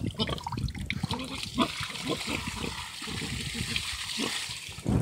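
Bucket of water being poured into a plastic tub: a steady splashing stream from about a second and a half in until just before the end. A pig grunts alongside.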